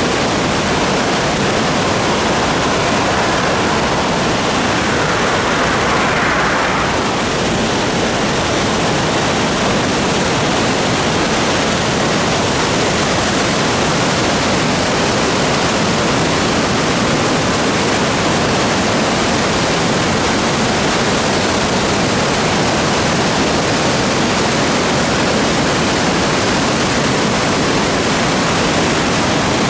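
Loud, steady rushing of a river in spate pouring over whitewater rapids and falls.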